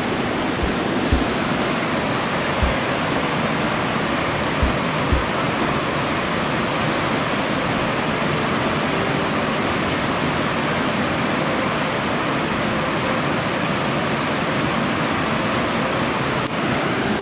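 Rushing river water: a steady, even noise. A few low bumps come in the first five seconds.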